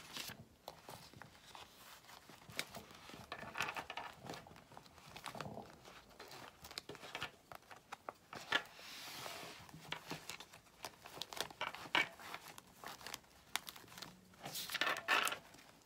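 Handling noise of a planner being worked into its cover: a clear vinyl notebook cover crinkling and rubbing against a planner cover's sleeves, with small scrapes and taps. Several brief louder rustles come and go.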